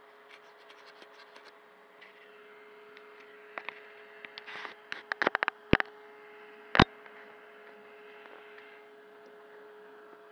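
Hands handling an onboard camera on an RC truck: light ticks at first, then a run of clicks and taps, ending in two sharp knocks about a second apart, over a steady electrical hum.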